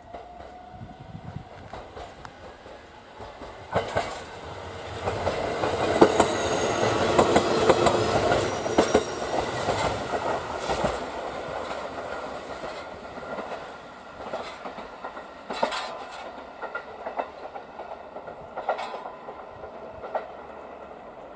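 Shinano Railway SR1-series electric train (set S203) running past, its wheels clicking over the rail joints. It is loudest about six to ten seconds in, then fades as it runs away, with a few more wheel clicks.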